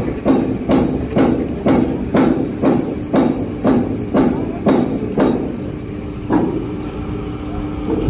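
Hammer blows on steel, about two a second, each with a metallic ring; they stop about five seconds in, and one more blow follows a second later.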